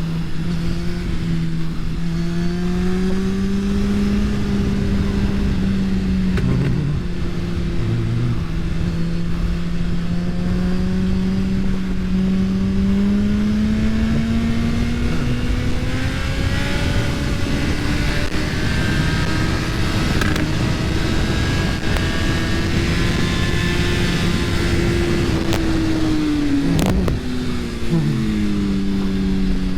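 2022 Suzuki Hayabusa's inline-four engine running hard at track speed, heard from an onboard camera with heavy wind rush. The engine note climbs slowly through the middle, then drops away near the end with a brief dip in loudness before picking up again.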